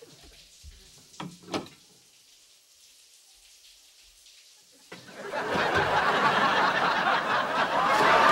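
Two small knocks, then about five seconds in a studio audience bursts into loud applause that carries on.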